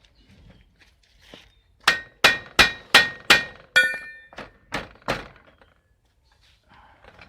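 Hammer blows on the metal of a bicycle's pedal crank, knocking at a tight pedal or crank part: about nine sharp strikes in quick succession, roughly three a second, starting about two seconds in. Each strike rings briefly like metal.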